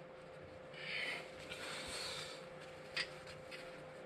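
Faint handling noises of gloved hands refitting the valve core into an aircraft tire's valve stem: two soft rubbing hisses and a small sharp click about three seconds in, over a thin steady hum.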